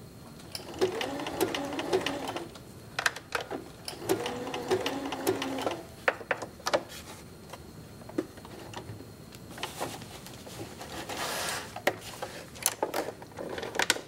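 Electric sewing machine stitching a narrow, dense zigzag around an appliqué in short runs, stopping and starting several times. Sharp clicks and knocks come in the pauses between runs.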